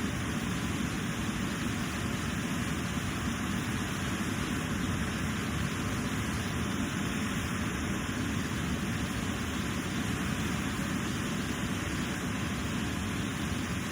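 Steady rushing of a river and waterfall, an even roar of water with no breaks.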